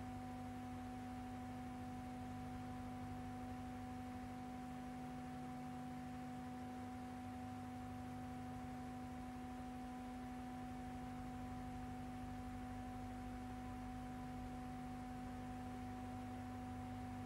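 Steady electrical hum: a constant low tone with fainter higher tones above it over light hiss, unchanging throughout, on the soundtrack of a silent film.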